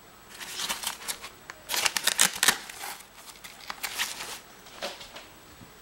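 Nylon fabric inside a rucksack rustling and crinkling as a hand rummages through its inner pockets, in several short bursts, loudest about two seconds in.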